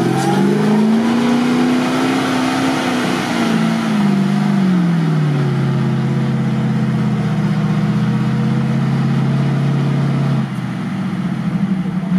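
GAZ-66 truck's engine revving as it ploughs through deep mud and water. The revs climb and hold high for a few seconds with churning mud noise, fall back about five seconds in, run steady, then ease off about ten and a half seconds in.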